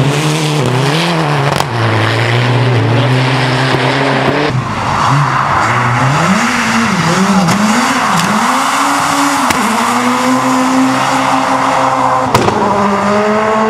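Rally car engines revving hard, the pitch rising and falling as the throttle is worked and gears are shifted. The sound changes abruptly about four and a half seconds in, to a Škoda Fabia S2000 engine rising and falling in quick surges and then holding a steady high pitch, and changes abruptly again near the end.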